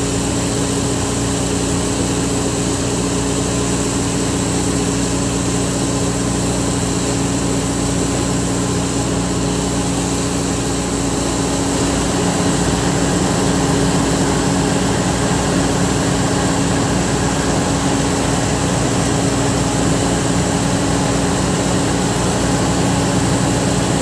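Fire truck engine running steadily at a constant speed, a low drone with a steady hum, a little louder from about halfway through.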